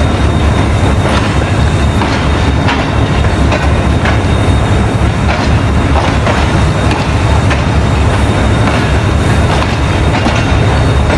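Empty passenger coaches being shunted past at close range: a steady low rumble of the running gear, with sharp wheel clacks over the rail joints about once or twice a second.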